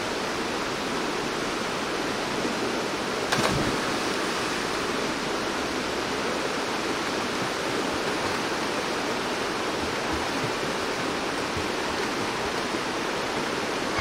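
Rushing water of a mountain stream's rapids, a steady even rush. One brief sharp sound stands out about three seconds in.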